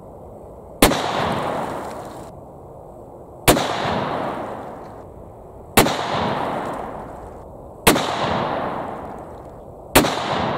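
Five shots from a Marlin 1895 SBL lever-action rifle in .45-70 Government, spaced about two seconds apart, each followed by a long fading echo.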